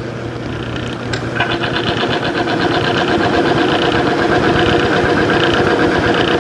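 Timken film-strength test machine running: the electric motor turns the arbor against the loaded test block. After a click about a second in, it settles into a loud, rapidly pulsing grinding chatter, a heavy bounce from an arbor badly scored and torn up by earlier testing.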